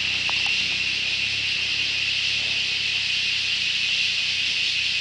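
A steady, high-pitched chorus of forest insects that runs without a break.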